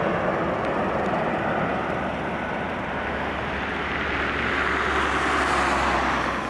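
Airbus A330 airliner on final approach with its landing gear down: a steady rush of jet engine noise with a low rumble underneath, dipping slightly a couple of seconds in and swelling again toward the end.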